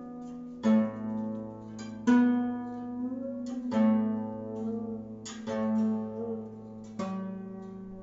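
Guzheng being played: a plucked note about every one and a half seconds, each ringing on, with some notes bent and wavered in pitch by the left hand pressing the string behind the bridge.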